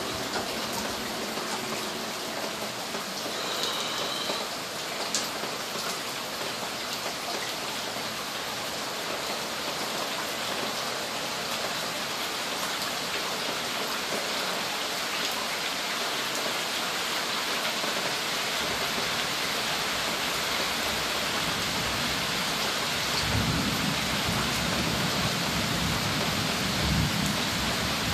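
Steady rain hissing throughout a thunderstorm, with a low rumble of thunder building in the last several seconds.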